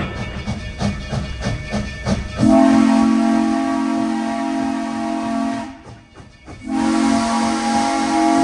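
Narrow-gauge steam locomotive working with a rhythmic beat of about three strokes a second, then its steam whistle blows a long, low blast of several notes at once about two and a half seconds in. The whistle breaks off briefly and sounds again near the end.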